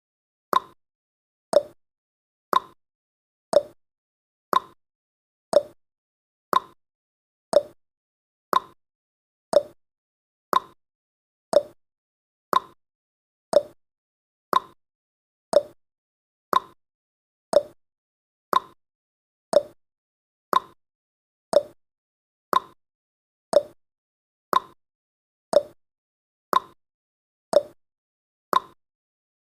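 Countdown timer's clock-tick sound effect, one short, sharp tick every second.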